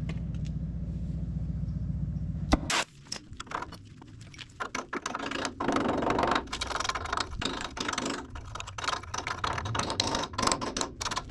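A steady machine hum stops with a sharp click about two and a half seconds in. Then comes irregular crackling and sputtering as the truck bed's steel mounting plates are cut out.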